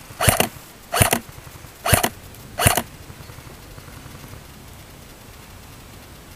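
Airsoft electric rifle (AEG) firing four shots at a steady pace of a little under one a second, each a short, sharp mechanical buzz-and-snap from the gearbox.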